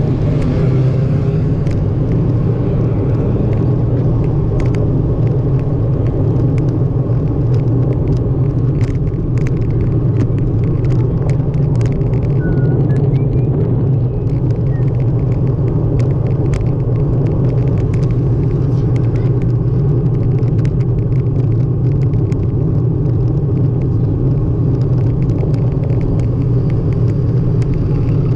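Steady low rumble of wind and road noise on a cyclist's camera while riding in traffic, with frequent small clicks and rattles.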